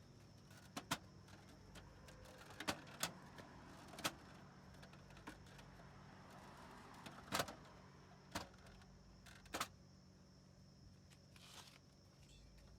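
Scattered sharp clicks and knocks, about eight in all, spread unevenly over a faint steady hum.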